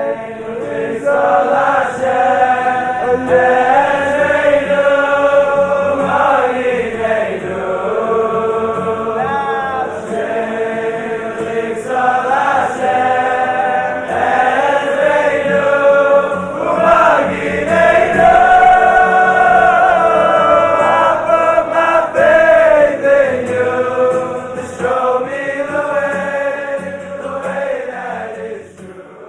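Voices singing together in a choir, a slow melody with long held notes, fading out near the end.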